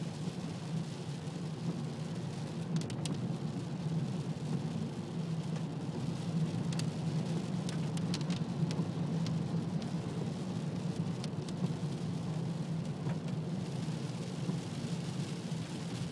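Inside a moving car: a steady low hum of engine and tyres on a wet road, with scattered sharp ticks of rain striking the windscreen.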